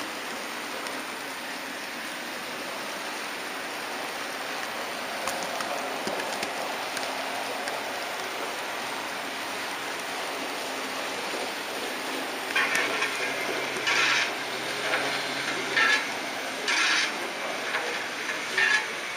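HO scale model train running along the track, a steady rushing rattle of its wheels and motor heard from on board. In the last third several short, louder bursts break in over it.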